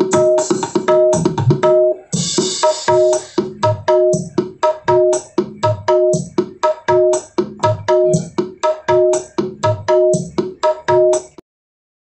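Music with quick drum hits and a repeating two-note figure, played through a homemade speaker with an 8-inch woofer and a round horn tweeter; the music cuts off just before the end.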